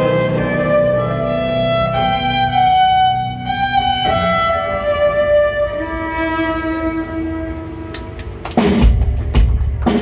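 Live rock band music: a violin plays long, sliding notes over a quieter backing, then the drums and full band crash back in loudly near the end.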